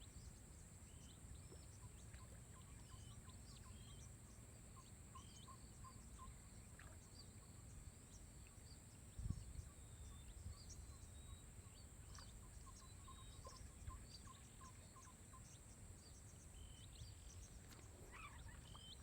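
Near silence: faint rural outdoor ambience with scattered bird chirps over a steady high insect whine, and one soft thump about nine seconds in.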